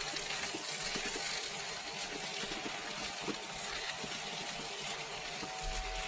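Chicken and vegetable filling sizzling in a frying pan as it is stirred: a steady hiss with a few light scrapes and taps of the spoon against the pan.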